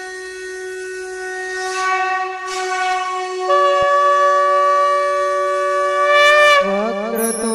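Instrumental intro music of long, held reedy wind-instrument notes. The notes shift to a new pitch about three and a half seconds in and slide in pitch near the end.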